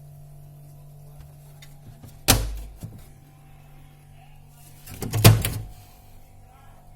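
Two knocks, about three seconds apart, the second a short clatter, over a steady low hum.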